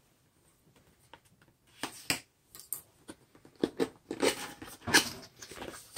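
Handling noise: a run of short clicks and crinkles starting about two seconds in, growing more frequent toward the end.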